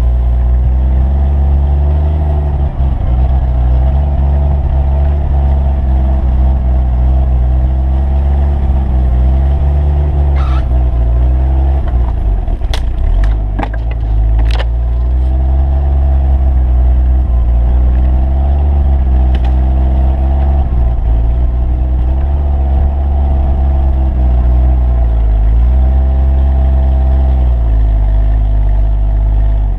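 Off-road vehicle's engine running under load while plowing through deep snow, its pitch rising and falling as the throttle changes, heard close at the side of the vehicle. A few sharp snaps about halfway through.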